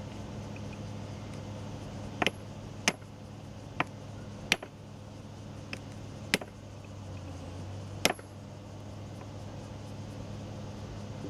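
Hand hammer striking a steel chisel held against a railway rail: six sharp metallic clinks at irregular gaps, plus one fainter tap, each with a brief high ring. A steady low hum runs underneath.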